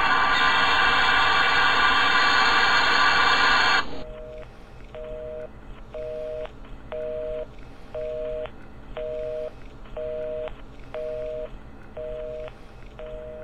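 Dial-up modem's loud data hiss heard over a telephone line, which cuts off suddenly about four seconds in. A telephone busy signal follows: a two-tone beep about once a second.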